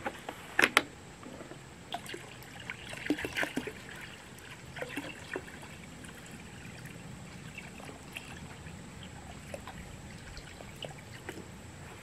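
A plastic gallon jug's cap clicking open twice, then water trickling and pouring from the jug into a bucket of mashed muscadine grapes.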